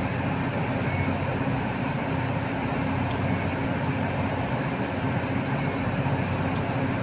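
Steady low hum and fan rush from power-plant substation equipment and a cooling tower running continuously.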